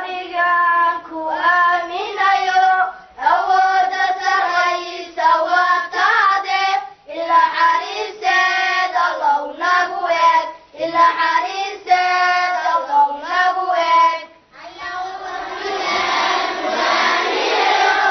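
A child singing solo into a microphone, in short phrases with long held notes. About fifteen seconds in the singing stops and gives way to the noise of a crowd.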